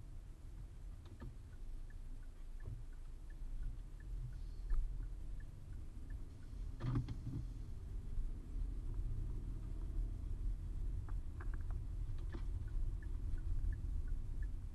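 Muffled steady low rumble of a car, heard from inside through a camera's protective case. A faint regular ticking, about three ticks a second, runs early and again near the end, and there is a single thump about seven seconds in.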